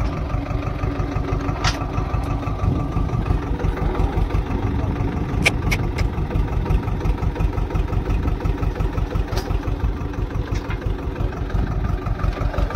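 Swaraj mini tractor's diesel engine running steadily with an even chugging pulse as it drags a leveller frame through tilled soil. A few short sharp clicks sound over it.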